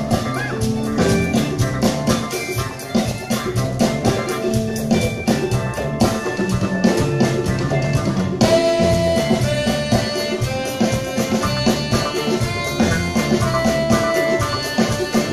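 Live afrobeat band playing a groove: drum kit and bass with guitar, and higher held melody notes joining about eight and a half seconds in.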